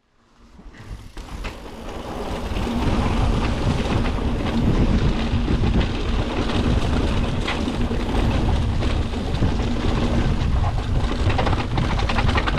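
Mountain bike being ridden, heard from a chest-mounted camera: wind buffeting the microphone, tyres rumbling over the trail and the bike rattling over bumps, with a steady hum underneath. The sound fades in over the first two seconds.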